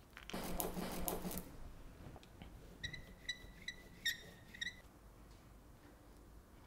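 Rubber ink roller (brayer) squeaking on an inked perspex sheet as it rolls over a funky-foam shape: a quick run of five or six short, high chirps. Before it, about half a second in, there is a brief rustle of handling.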